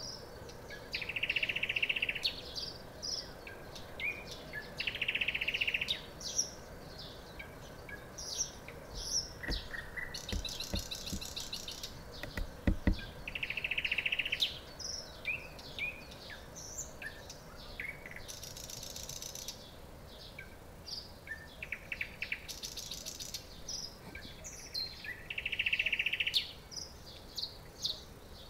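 Nightingale singing: varied phrases of whistles and clicks, broken every few seconds by loud buzzy rattles and fast high trills.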